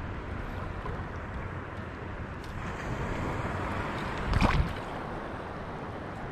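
Wind noise on the microphone over water lapping in reef shallows, with a brief louder rush of noise about four seconds in.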